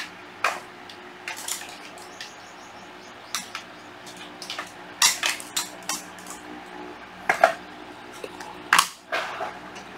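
Scattered clinks and knocks of hard objects, a dozen or so short sharp hits at uneven intervals with the loudest two near the end, over a faint steady hum.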